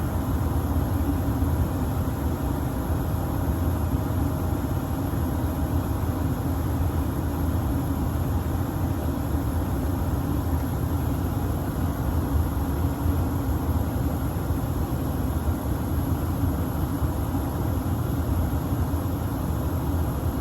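A 5-ton gas-electric package unit running steadily in heating mode, a constant low rumble of its burners and fans with no changes.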